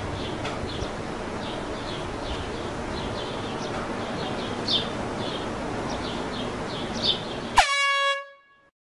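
Outdoor background with small birds chirping repeatedly, then near the end a sudden short blast of an air horn: one steady tone lasting about half a second.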